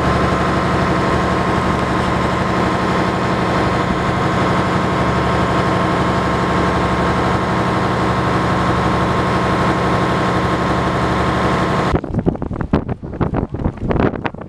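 Fishing boat's engine running steadily, an unchanging drone. About twelve seconds in it cuts abruptly to wind buffeting the microphone in irregular gusts.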